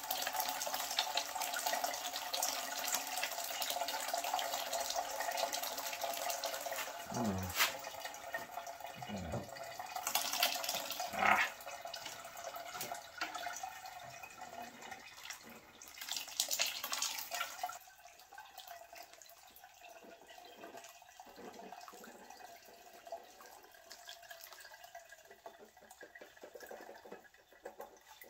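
Melted beeswax and water slurry pouring and splattering out of a pan through a mesh strainer into a pot, with a few louder splashes and knocks as the pan is scraped. About two thirds of the way through the pour thins out to scattered drips draining through the strainer.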